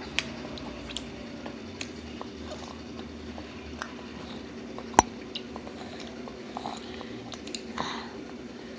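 A baby eating macaroni: scattered small mouth smacks, chewing and little grunts over a steady low hum, with one sharp click about halfway through.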